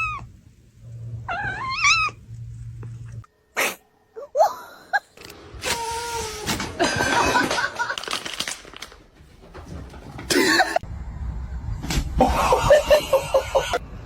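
A cat meowing, a wavering call about one and a half seconds in, followed by a run of short, abruptly cut sounds that include more brief meow-like calls.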